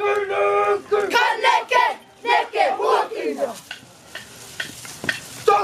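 Group of girls chanting a Māori kapa haka in unison, loud and forceful with shouted calls. About three and a half seconds in the chanting breaks off into a quieter stretch with a few scattered knocks, and loud voices come back near the end.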